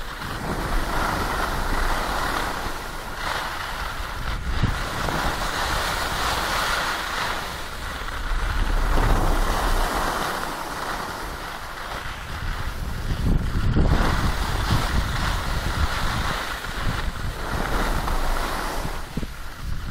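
Wind buffeting the microphone of a camera carried by a moving skier, with the hiss and scrape of skis sliding on packed snow, swelling and fading every few seconds.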